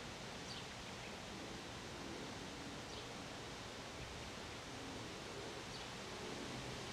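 Steady wind noise with rustling, and a bird chirping faintly three times, each a short high falling note.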